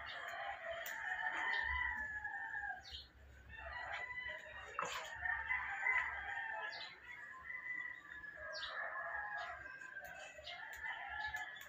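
Roosters crowing, several long calls one after another and partly overlapping.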